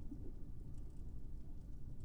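Low, steady muffled water rumble, with a few faint fire crackles.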